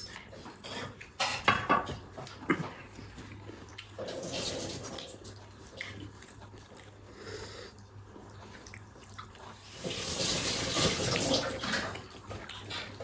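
Close-up mouth sounds of eating chow mein noodles: wet slurping and chewing. There are a few sharp clicks of utensils in the first couple of seconds, and the loudest slurping comes near the end.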